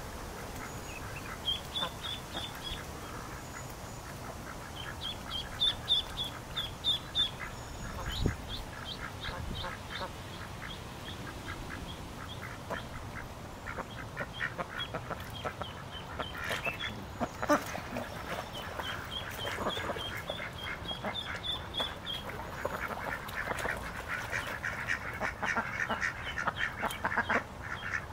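Ducks and geese calling: short runs of quick high-pitched calls mixed with quacking and chattering, which grows busier near the end.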